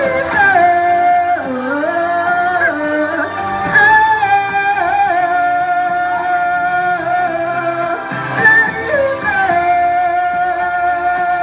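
A woman singing long held notes of a pop ballad over a backing track, her voice swooping down and back up about a second and a half in and again near nine seconds.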